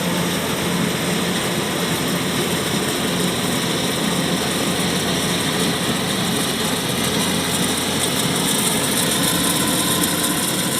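Kubota DC-105X combine harvester running steadily, its diesel engine and machinery making a constant, even drone.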